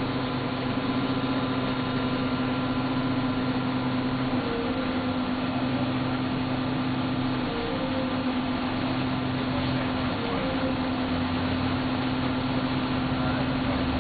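Steady mechanical hum inside a standing city transit vehicle, with a lower drone that cuts in and out several times.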